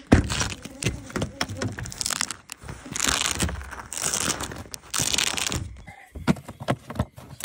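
Rummaging through gear at the back of a pickup truck: a sharp knock at the start, then rustling and crinkling of bags and covers with scattered clicks and knocks.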